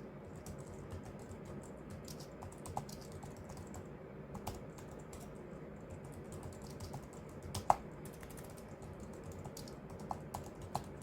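Typing on a computer keyboard: a continual run of key clicks, with one clearly louder clack about two-thirds of the way through and a few sharper ones near the end.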